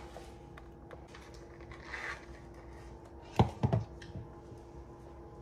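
A cardboard cupcake box being handled: faint rustling and scraping, then two sharp knocks a little over three seconds in, over a steady low hum.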